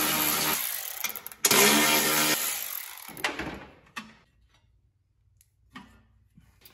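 Cordless electric ratchet with an 8 mm socket whirring in two bursts as it spins out the bolts of the mower deck's belt cover: a short run at the start and a longer one about a second and a half in that tails off. A faint knock follows about four seconds in.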